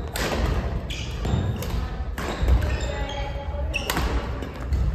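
Badminton rally: sharp cracks of rackets striking a shuttlecock, several in a row, with short squeaks of court shoes on a wooden floor, all echoing in a large gym hall.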